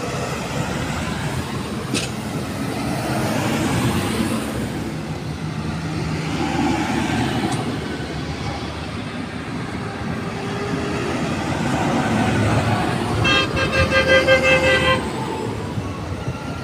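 Tractor engine and road rumble as a green John Deere tractor drives past and away. Near the end, a vehicle horn sounds in a rapid string of short toots, the loudest sound here.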